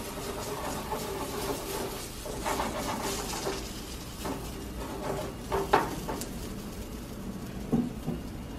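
Pancake batter sizzling steadily in a greased nonstick frying pan over a gas burner, with a few brief sounds as the pan is shifted on the grate.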